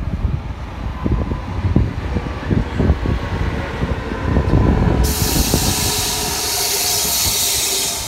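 Double-deck electric commuter train passing close by, its wheels rumbling and clattering over the track with a faint steady whine. About five seconds in, a loud steady hiss sets in suddenly and holds.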